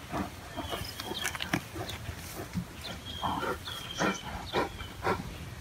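Bears making short, rough vocal sounds several times, with birds chirping in the background.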